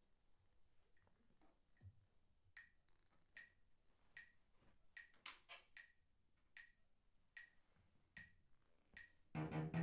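Near silence with faint handling noise, then a metronome ticking faintly at a steady beat of about one tick every 0.8 seconds, with a few quicker ticks in between. A bowed cello starts playing loudly just before the end.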